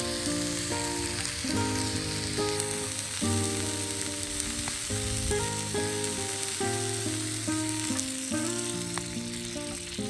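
Background music of plucked-string notes over a steady sizzle of oil frying, as from a skillet of ajillo bubbling in olive oil.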